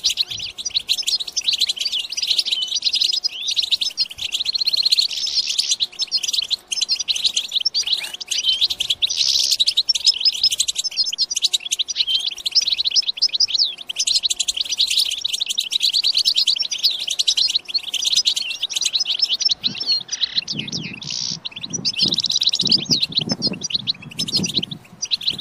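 Many European goldfinches twittering together in a dense, continuous, high-pitched chatter of quick chirps and trills.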